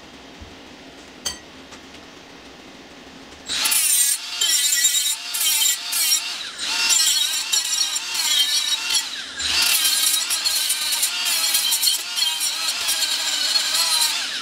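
Cordless Milwaukee rotary tool grinding a steel plate held in a vise with an abrasive wheel. It starts about three and a half seconds in as a high whine whose pitch wavers as the wheel bears on the metal, broken by a few short lifts.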